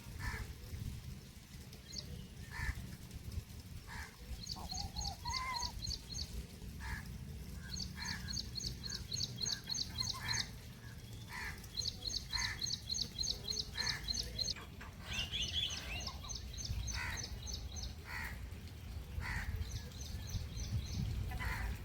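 Birds calling: one repeats runs of rapid high chirps lasting about two seconds each, while shorter, lower calls come about once a second. A steady low rumble lies underneath.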